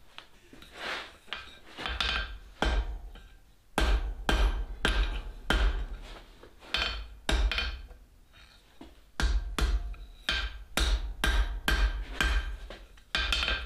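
Hand hammer striking a yellow-hot steel bar on an anvil, about two blows a second in runs with a short pause about two-thirds of the way through. Each blow rings briefly off the anvil.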